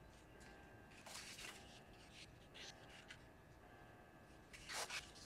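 Sheets of paper being handled and slid across a tabletop: a few short rustles, the loudest near the end.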